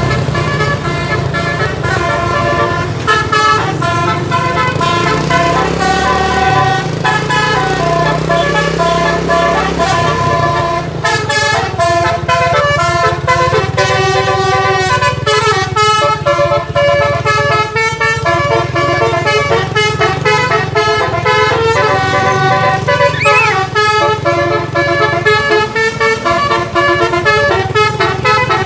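Bus 'telolet' multi-tone musical air horn playing a long run of melodies, its notes stepping up and down several at a time without pause, over the low rumble of the bus's engine.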